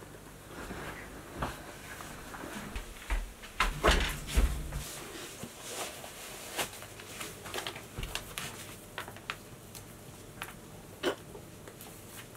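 A few heavy thumps about four seconds in, then rustling and scattered clicks as black trainers are pulled on and their laces tied.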